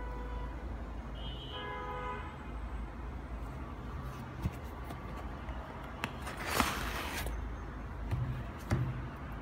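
Steady low background rumble with a short pitched toot about a second and a half in. About six and a half seconds in there is a brief loud rustle as the knit sneaker is handled close to the microphone, with a couple of light knocks.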